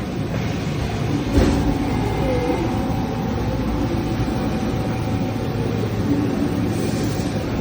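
Haas EC-500 horizontal CNC machining center running a copper-cutting job: a steady machine hum and rush of noise, with one sharp knock about a second and a half in.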